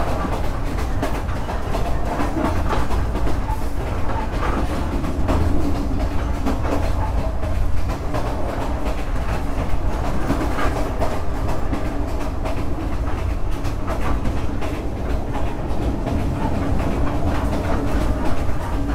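Vietnam Railways SE19 passenger train running, heard from aboard a carriage: a steady low rumble of the wheels on the rails, with scattered clacks from the track.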